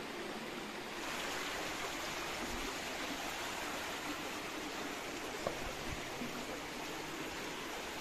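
Creek water running steadily, an even rushing that grows a little louder about a second in.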